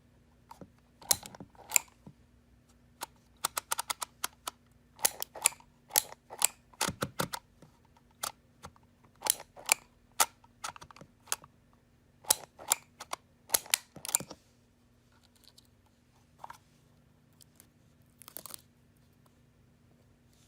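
Handheld DYMO embossing label maker in use: its letter dial is turned and its handle squeezed to press characters into the tape. This gives a quick, uneven run of sharp plastic clicks and snaps, thinning to a few single clicks near the end.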